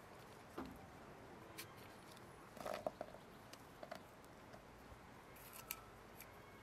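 Fresh broad beans being peeled by hand and dropped onto a wooden tray: scattered soft clicks and taps of skins splitting and beans landing. The loudest cluster comes about three seconds in.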